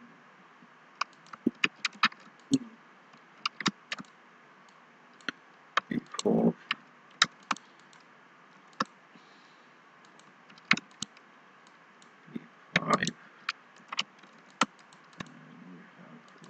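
Computer mouse clicks and keyboard keystrokes as CAD commands are entered: short, sharp clicks at irregular intervals, with two denser clusters of duller taps about six and thirteen seconds in.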